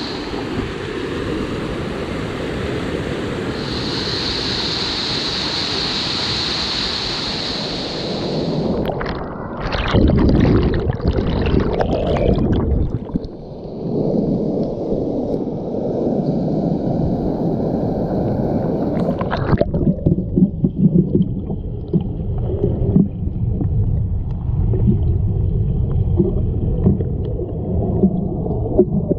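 River rapids rushing over rocks as whitewater. About nine seconds in the sound turns to churning water close up. From about twenty seconds in it is heard underwater: a muffled low rumble and gurgle.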